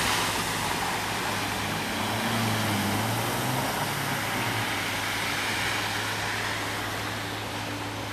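Car driving through shallow floodwater on the road: a steady hiss of tyre spray and water that slowly fades, with an engine note swelling and falling away about two to four seconds in, over a low steady hum.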